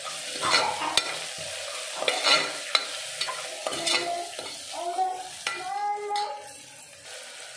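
Chopped onions with turmeric and black masala sizzling in hot oil in a pressure cooker, the spices frying. A plastic slotted spoon stirs and scrapes against the pot several times in the first few seconds.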